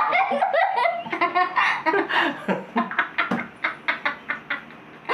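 A man and a young boy laughing together, a long run of quick repeated ha-ha beats that tails off near the end.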